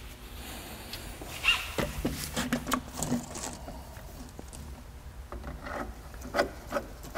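Light clicks, small knocks and rubbing of metal and rubber parts as a car strut is worked up through a compressed coil spring held in a spring compressor. The knocks are loudest about one and a half to three seconds in and again near the end.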